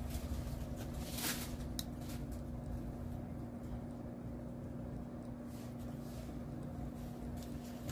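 Kitchen room tone: a steady low hum with one constant pitch, with a couple of faint clicks about a second in.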